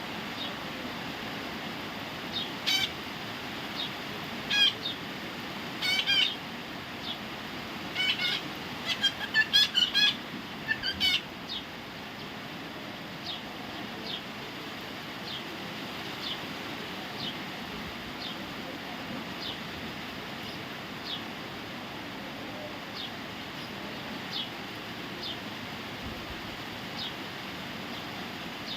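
A parrot giving a run of loud, harsh calls during the first dozen seconds, then short faint chirps about once a second, over a steady background hiss.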